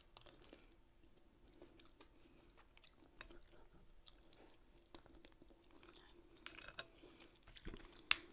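Faint close-up chewing of clams and linguine, with scattered small wet clicks and a sharper click near the end, over a faint steady hum.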